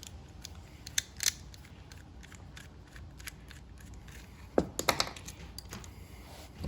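Hand tools clicking, snipping and knocking against metal and plastic parts while a microwave is pulled apart for scrap. Scattered light clicks, a few louder knocks about a second in and again near five seconds, and a sharp clatter at the very end.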